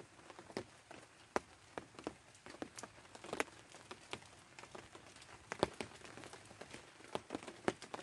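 Irregular sharp taps and crinkles of a plastic raincoat, scattered every fraction of a second over a faint steady hiss.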